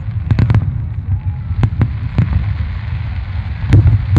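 Fireworks display: aerial shells bursting in a continuous low rumble of booms. Sharp bangs come in a quick run of three about a third of a second in, a few more around the middle, and the loudest near the end.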